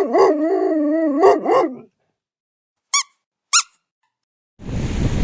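A dog's drawn-out whining howl, wavering up and down in pitch for nearly two seconds, then two short high squeaks about half a second apart. Near the end, wind and surf noise comes in.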